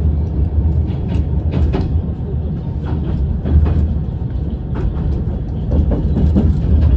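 Train noise: a steady low rumble with scattered clicks and knocks.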